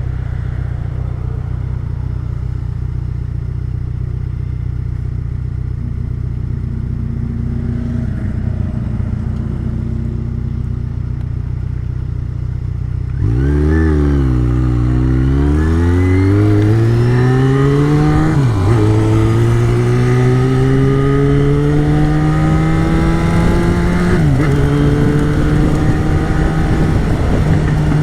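Yamaha XJ6's 600 cc inline-four engine idling steadily, then pulling away about 13 seconds in and getting louder, revs climbing through the gears with two upshifts, each a sudden drop in pitch.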